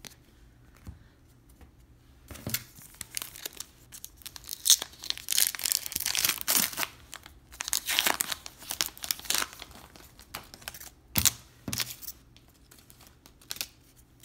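Foil wrapper of a 2018 Bowman baseball card pack being torn open and crinkled by hand. The crackling rips start about two seconds in and come thickest through the middle, with two sharper crinkles later on.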